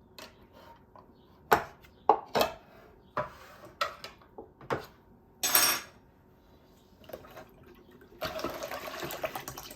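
Kitchen utensils and dishes clinking and knocking, a string of sharp clinks with one louder scrape, then water running steadily for the last second or two.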